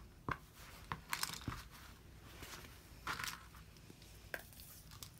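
Light rustling and a few soft clicks as fabric and a throw pillow are handled and moved on a cutting mat.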